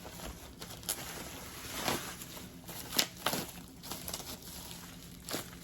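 Packaging being handled during an unboxing: scattered rustling with a few sharp taps and clicks.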